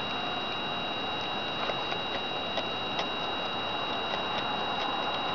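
Faint, irregular clicks of a woodchuck chewing food held in its forepaws, over a steady high-pitched two-tone whine.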